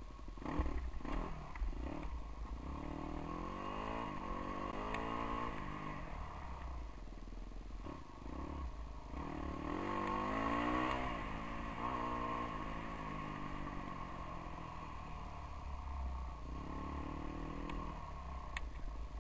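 GasGas dirt bike engine revving up and easing off as it is ridden along a trail. It climbs in pitch three times, loudest about ten seconds in. There are a few knocks in the first two seconds, over a steady low rumble.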